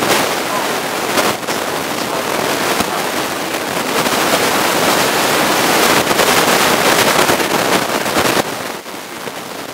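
Audience applauding, a dense patter of clapping that swells in the middle and dies away near the end.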